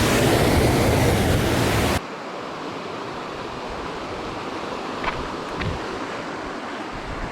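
Steady rushing water of a mountain stream and waterfall, loud for about two seconds, then cutting abruptly to a quieter, steady rush of flowing water.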